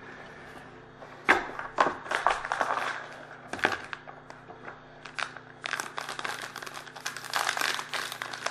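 Foil trading-card pack wrapper crinkling and crackling as it is handled, in irregular sharp crackles that grow busier about halfway through.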